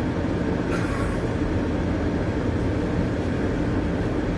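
Steady low rumble and hum inside a TTC Bombardier streetcar, the interior running noise of the car, with a brief hiss about a second in.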